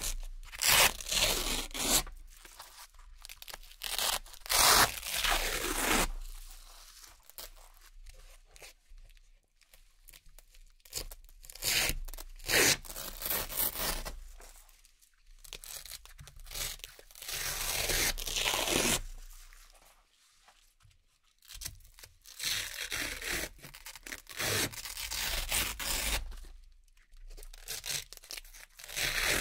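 Hook-and-loop (Velcro) circle patches being peeled off a Velcro board and pressed back on: crisp, crunchy ripping in repeated bursts of a second or two, with short pauses between.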